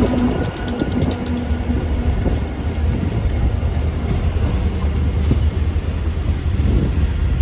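Freight train passing: the EMD SD40-2F and SD30C-ECO diesel locomotives rumble by with a humming engine tone that fades in the first couple of seconds, followed by covered hopper cars rolling past on the rails with a steady low rumble.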